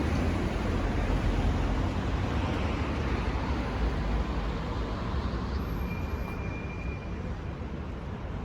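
Steady city street traffic noise, a low rumble of passing vehicles that eases slightly toward the end.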